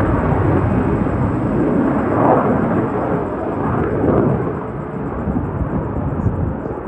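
F-22 Raptor fighter jet's twin Pratt & Whitney F119 turbofan engines, heard as a loud, low rumbling jet roar that swells about two seconds in and again about four seconds in.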